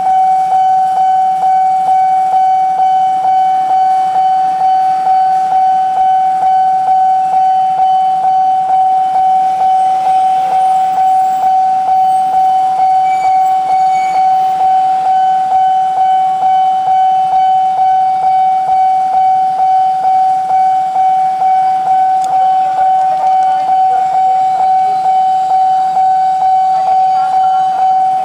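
Nippon Signal electronic level-crossing alarm ringing steadily, a repeating tone at about two strikes a second. Toward the end, an approaching Tokyo Metro 6000 series electric commuter train is faintly heard under the alarm.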